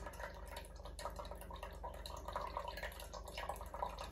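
Melted butter trickling and dripping from a tilted ceramic bowl into a saucepan, a thin irregular stream of small drips and splashes.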